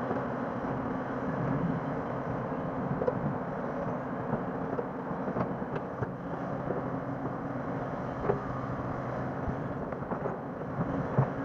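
Hydraulic crawler excavator's diesel engine running steadily while it digs and swings loads of soil, with a few short sharp knocks from the machine.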